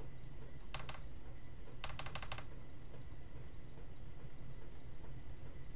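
Pen stylus clicking and tapping on a tablet screen during handwriting: a pair of clicks about a second in, then a quick run of about five clicks about two seconds in, over a low steady hum.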